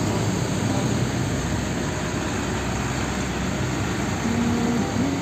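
Bulk powder tanker truck's diesel engine and tyres as it drives past on a road, a steady road-traffic noise with a faint tone rising near the end.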